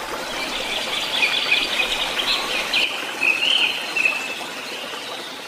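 A songbird calling: a quick run of chirps and warbling notes lasting about four seconds, over a steady rushing noise.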